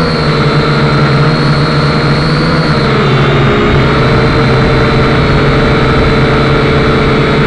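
Motors and propellers of a radio-controlled aircraft, heard from the camera it carries: a loud, steady whine with a clear pitch that dips slightly about three seconds in and then holds.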